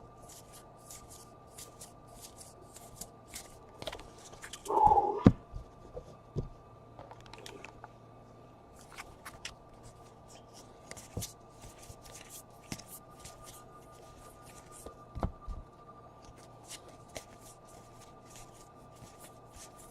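Baseball trading cards being handled and flipped through one after another: a string of soft, quick clicks and slides of card on card, with a louder bump about five seconds in.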